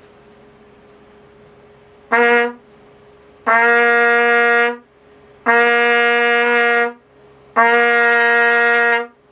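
Trumpet played through a mouthpiece whose throat has just been enlarged. One short note comes about two seconds in, then three long held notes on the same pitch, each over a second, with short gaps between.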